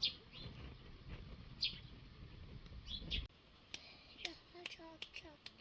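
Small birds chirping in short, high, falling calls every second or two over a low rush of noise. The rush stops abruptly about three seconds in, and several sharp clicks follow.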